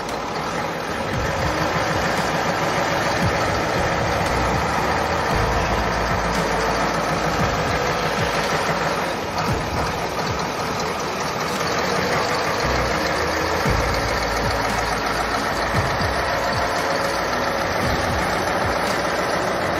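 Diesel engine of a MAN 8x8 military truck running steadily as the truck crawls through a deep rutted ditch, with a slight dip in level about halfway through.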